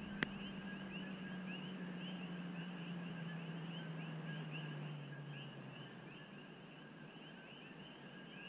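Faint night chorus of coqui frogs: many short, rising chirps overlapping continuously. Under it a low hum slowly drops in pitch and fades out about halfway through, and there is a single sharp click near the start.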